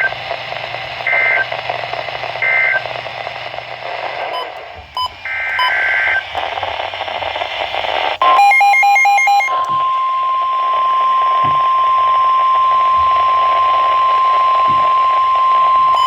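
NOAA Weather Radio alert signalling over hissy reception. Three short two-tone data chirps (the end-of-message code) come first, then a harsher burst of digital header data about eight seconds in, and then the steady 1050 Hz warning alarm tone begins.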